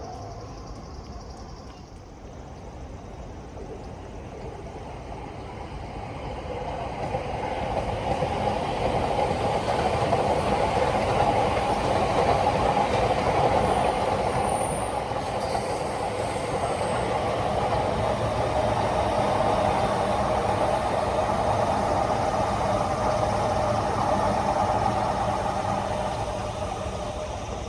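Train passing on the tracks, its running noise building from about six seconds in, holding loud for most of the time, then fading near the end.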